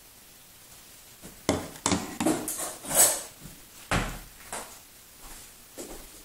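Handling noises from unboxing a battery charger: a cluster of knocks, scrapes and rustles from about a second and a half in to about four seconds, then a few lighter knocks.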